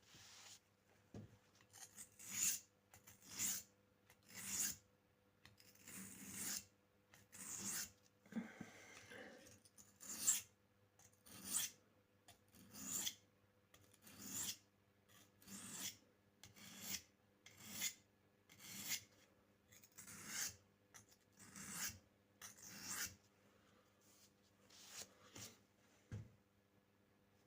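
Pocket knife blade stroked along an oiled sharpening stone: a scraping swish about once a second, the strokes growing softer near the end.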